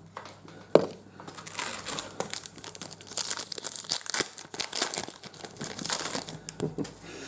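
Crinkling and tearing of a trading-card pack wrapper being ripped open, after a single sharp click about a second in.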